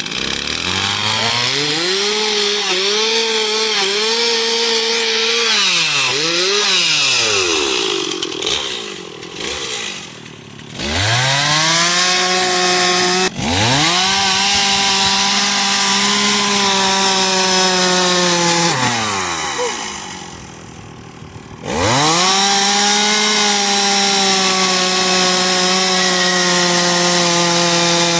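Gas chainsaw carving into wood, revved to full throttle for several seconds at a time. The engine pitch wavers as the chain bites, then drops back toward idle between cuts several times.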